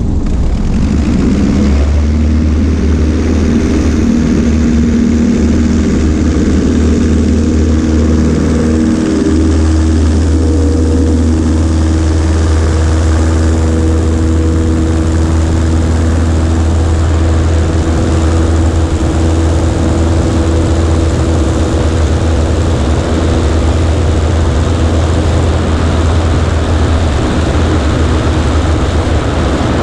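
Cessna 140A's Continental C-90 engine and propeller running at high power through a takeoff roll on grass and lift-off, steady and loud. Wind and airflow rush over the wing-mounted microphone.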